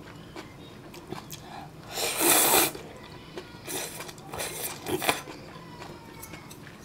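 A person slurping spicy ramen noodles: one long, loud slurp about two seconds in, then a few shorter slurps, with chewing in between.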